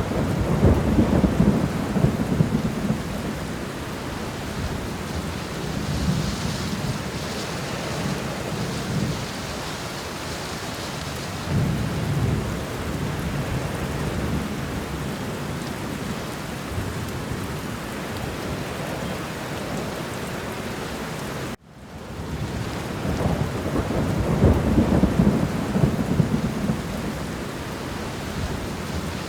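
Steady rain in a thunderstorm, with low rolling thunder swelling up three times. About two-thirds of the way through the sound cuts out for an instant and fades back in.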